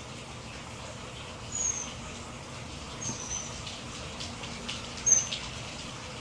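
A small bird giving three short, high chirps a second or two apart, the last the loudest, over a steady background hiss.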